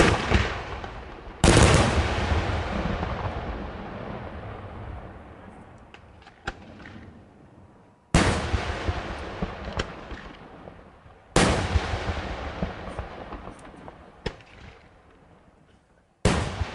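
Fireworks aerial shells exploding: five heavy single booms a few seconds apart, the loudest about a second and a half in. Each boom is followed by a long rolling echo that fades away, with a few smaller cracks between them.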